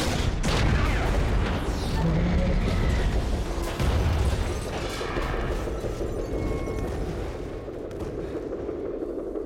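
Film sound effects of explosions over a city: a heavy low rumble of booms, with a sudden loud hit about four seconds in, then easing off.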